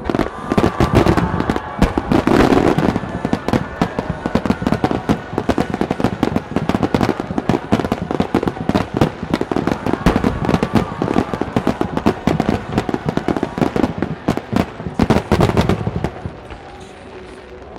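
Fireworks barrage: a dense, continuous run of sharp bangs and crackles from low fan-shaped bursts and glittering stars, dying away near the end.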